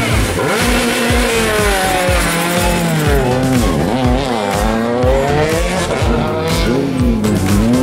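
Rally cars working through a tight tarmac hairpin: a Citroën C4 WRC's engine revs rise and fall as it takes the bend and pulls away, with some tyre squeal. Then a Renault Clio rally car's engine comes in as it arrives at the corner.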